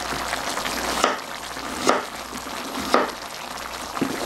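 A knife cutting potatoes into large chunks on a wooden cutting board, four strokes about a second apart, over the steady sizzling bubble of chicken braising in spicy red sauce in an electric pan.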